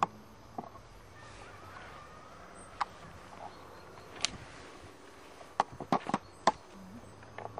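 Quiet outdoor garden ambience broken by a few short, sharp clicks, with a quick cluster of them about six seconds in.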